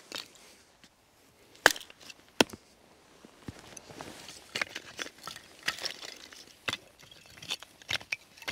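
Wood being chopped and broken by hand: two sharp chopping strikes in the first half, then a run of lighter cracks and snaps of wood.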